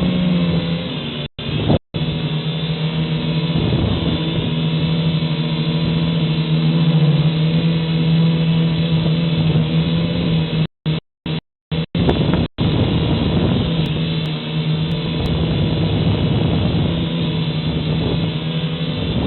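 Syma X5HW quadcopter's small motors and propellers whirring steadily in flight, the pitch wavering a little as it is flown. The sound cuts out completely for moments a few times.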